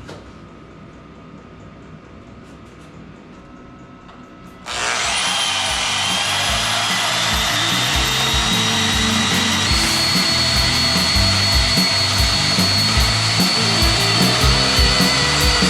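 A power tool motor switches on about five seconds in and runs loudly and steadily, its high whine climbing as it spins up and stepping higher about halfway through.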